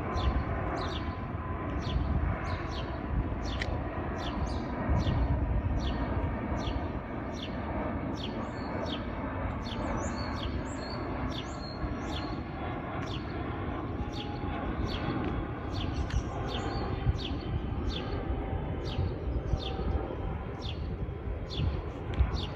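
Low, steady rumble of a jet airliner on final approach passing overhead, with a bird chirping repeatedly, one short falling chirp about every two-thirds of a second, and some higher twittering midway.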